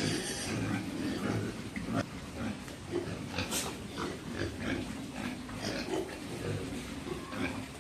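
Several pigs grunting and munching madre de agua leaves, with many short crunching and snapping clicks of chewing mixed in with the low grunts.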